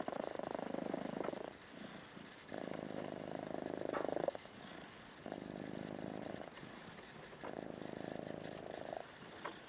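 Bengal kitten purring steadily while being stroked, the purr swelling and easing in a regular cycle: four louder stretches of about a second or more each, with softer purring between.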